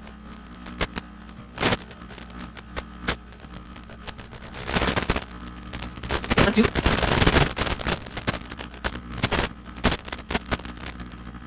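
Steady hum with irregular crackles of static, and two louder spells of hiss about five and seven seconds in.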